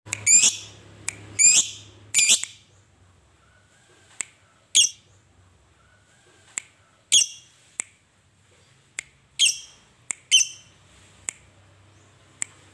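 Caged lovebird giving about seven shrill, short chirps, each a quick downward-bending squeak. They come at irregular intervals, three close together at the start, with brief sharp ticks in between.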